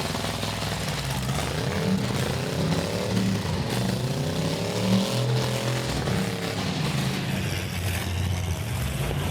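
Demolition-derby car engines revving hard, their pitch rising and falling again and again over a steady din.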